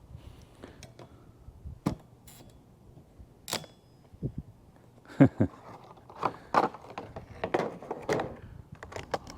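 Sharp clicks and knocks of wiper blades being handled: a few single clicks, then a quicker run of them in the second half.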